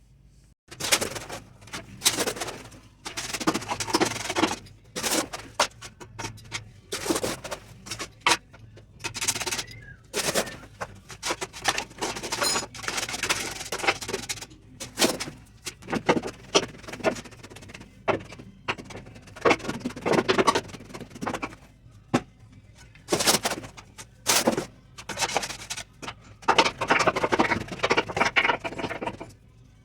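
A shovel scraping and knocking through a batch of concrete being mixed by hand, in irregular strokes with short pauses between them.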